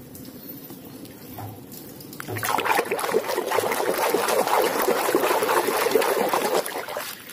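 Water splashing and sloshing as a hand swishes plastic toys through a basin of water, starting about two seconds in and going on for about five seconds, choppy and uneven.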